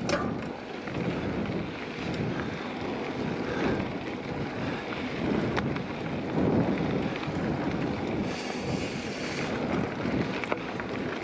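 Wind rushing over the microphone as a hardtail mountain bike is ridden fast along a trail, with the rolling noise of the ride and a few sharp clicks and rattles from the bike.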